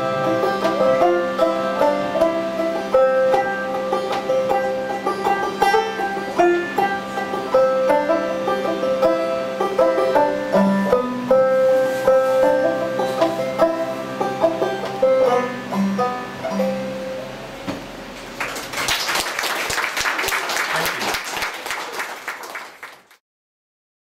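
Banjo picking over a held harmonium drone, playing the instrumental ending of a folk song; the last notes die away about two-thirds of the way through. Clapping then follows for about four seconds and cuts off abruptly just before the end.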